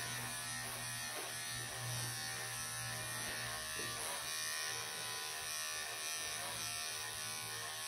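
Wahl professional electric pet clippers buzzing steadily as they shave a Persian cat's thick coat.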